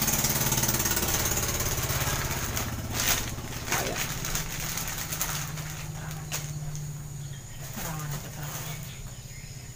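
Clear plastic bag crinkling and rustling as a spinning reel is handled inside it, with a few sharper clicks a few seconds in. Under it, a steady low hum and a constant high-pitched tone.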